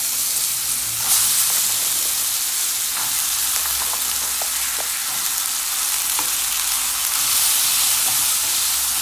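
Diced potatoes sizzling steadily in hot coconut oil in a nonstick kadai, just added to the tempering. A few light taps of a wooden spatula against the pan come through as they are stirred.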